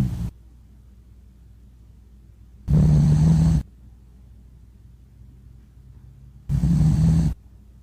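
Dog snoring: two loud snores about four seconds apart, each lasting just under a second at one steady low pitch, following the tail of a shorter one at the very start.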